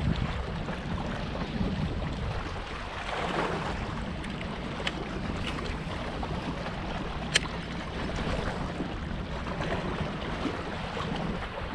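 Steady wind on the microphone with water lapping, and one sharp click about seven seconds in.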